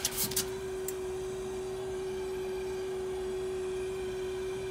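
Smoke leak-test equipment running with a steady one-pitch hum, with a few short hisses in the first second as smoke is pushed through the wand into the plastic containment over the deck leak.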